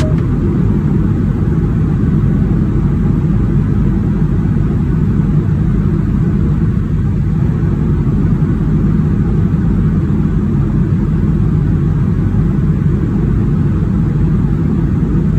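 Steady low rumble of a vehicle in motion, as heard from inside it, without change or distinct events.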